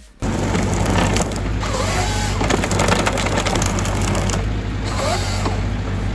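Heavy wood-working machine with its diesel engine running under load, crushing and splintering wood with a dense crackling, starting suddenly about a quarter second in.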